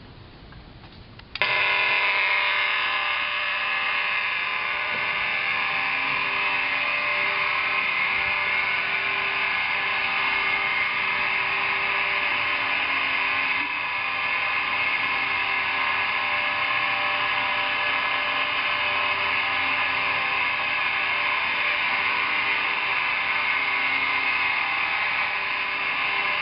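Large overhead garage door's electric opener motor starts suddenly about a second and a half in and runs steadily with a buzzing hum while the door travels.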